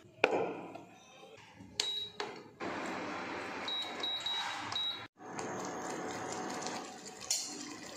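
Induction cooktop's control panel beeping as its touch buttons are pressed: one beep about two seconds in, then four quick beeps around four seconds. A knock comes just after the start, and a steady hiss runs under the beeps.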